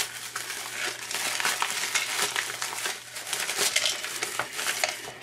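Plastic mailer bag and plastic packaging crinkling and rustling as a wrapped item is pulled out and unwrapped by hand, a steady dense crackle of small clicks.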